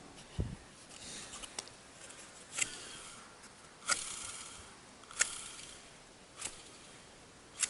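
A series of short, sharp clicks and taps, roughly one every second and a bit, from small parts being handled and fitted while a heater fan motor is put back together.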